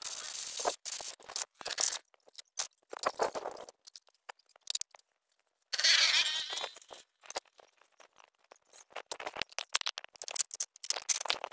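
Aerosol cleaner spraying through a straw into a motor-scooter throttle body in hissing bursts, the longest lasting about a second around halfway through, to flush out dirt that was making the throttle stick. Between the bursts, metal parts click and scrape in the tray as they are handled.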